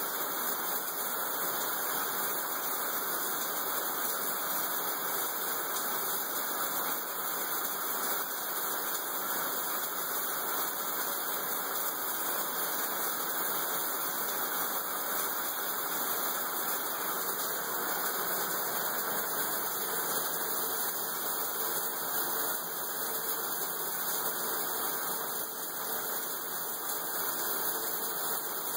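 Steady, even hiss at a constant level, with no distinct knocks, scratches or voices standing out.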